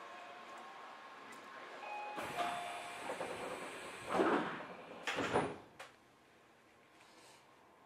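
Sliding passenger doors of a Tobu 30000 series train closing at a station, heard from inside the car: a rising rush of noise ends in a thud about four seconds in, a second thud follows about a second later, then a short click, and the car goes quiet.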